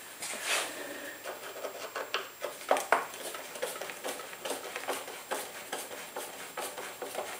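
Hand screwdriver backing a screw out of a scooter's plastic handlebar cover: irregular small clicks and short scrapes of the tool and screw against the plastic.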